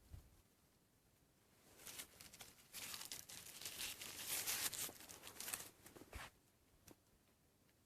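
Crinkling, rustling handling noise, starting about two seconds in and running for about four seconds, ending with a soft thump.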